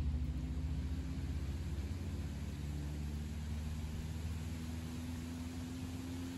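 Low, steady hum of a distant engine over a faint hiss, its pitch drifting slowly upward and fading a little.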